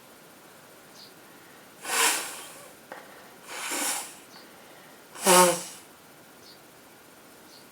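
A woman with a head cold sneezing: three sudden bursts of breath about a second and a half apart, the last one the loudest and voiced.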